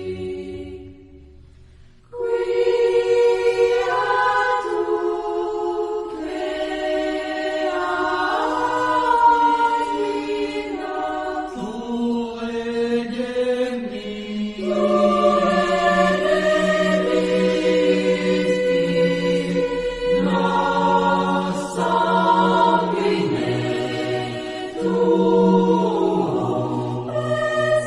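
A choir singing slow, sustained chords that change in steps. The previous piece fades out over the first two seconds, then the choir starts abruptly about two seconds in.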